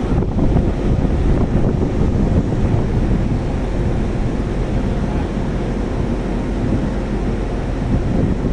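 Wind buffeting the microphone over the sea, with the wash of water and a faint steady hum underneath.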